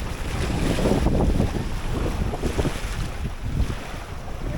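Wind buffeting an action camera's microphone on an open boat: a rough, uneven low rumble that swells and eases.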